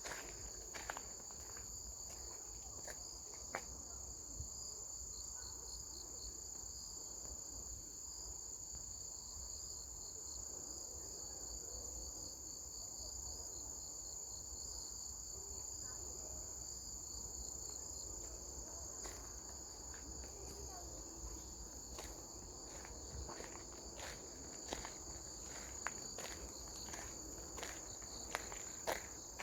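Insects chirping in a steady, high, pulsing trill, with scattered light ticks that come more often in the second half.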